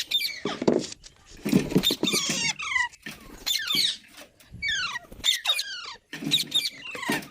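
Green parakeet calling: a run of harsh, screechy calls, each sweeping down in pitch, repeated in quick clusters.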